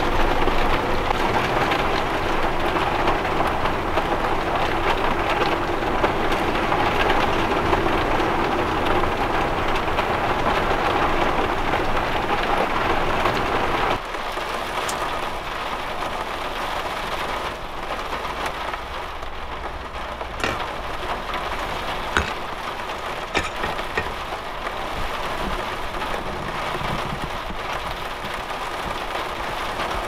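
Heavy storm rain and wind, a loud steady rush. About halfway through it drops abruptly to quieter rain drumming on a camper van's roof, heard from inside, with a few sharp clicks.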